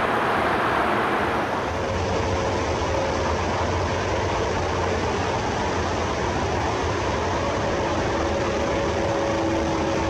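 Steady traffic noise from a nearby freeway: an even, unbroken rush with no distinct passing vehicles.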